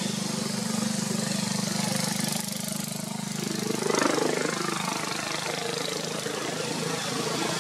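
A motor engine running steadily at idle, a low even hum, swelling briefly about four seconds in.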